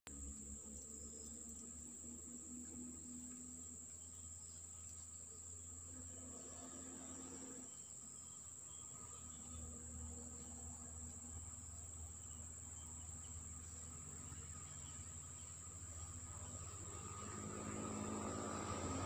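Insects chirring as one steady, continuous high-pitched tone, with a low rumble underneath that swells near the end.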